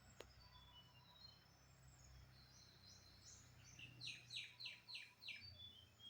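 Faint birdsong: scattered short whistled calls, then a quick run of five downward-sweeping notes about four seconds in, over a low steady background hum.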